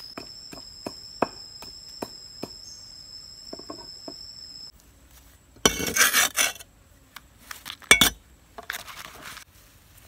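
A steady high-pitched insect drone with light clicks of footsteps on leaf litter cuts off abruptly about halfway. Then come two loud scraping clatters, a sharp knock and a shorter scrape: a mortar and utensils being handled on a wooden table.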